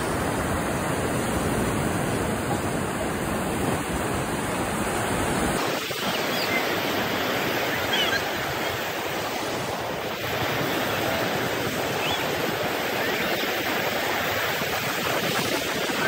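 Sea surf: waves breaking and foaming in the shallows, a steady rush of water. The deep rumble under it cuts out suddenly about five and a half seconds in.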